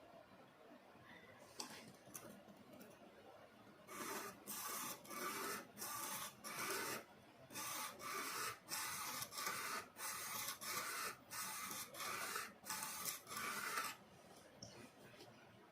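Quick scraping strokes on wood, about two a second, beginning a few seconds in, with one short pause partway through, then stopping.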